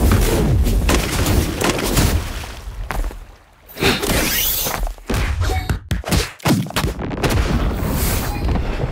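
Anime fight sound effects: a booming explosion and a dense run of heavy impacts and blasts, dropping away briefly about three and a half seconds in before the blasts resume.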